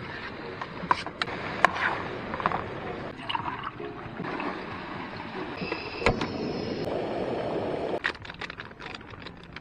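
A metal spoon clinking and scraping in an aluminium camping pot, with several sharp clinks in the first couple of seconds. Then water pours from a plastic jug into a stainless steel mug for about two seconds, followed by light rustling and ticks.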